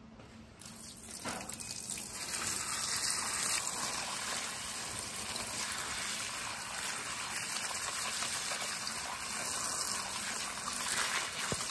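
A jet of water splashing onto bare metal motor parts (the rotor shaft and a cast end housing) in a plastic basket, rinsing them clean. It starts about half a second in and keeps up as a steady hiss.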